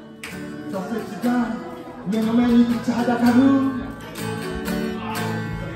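Amplified acoustic guitar strummed and picked, an instrumental passage of chords with melody notes between sung verses.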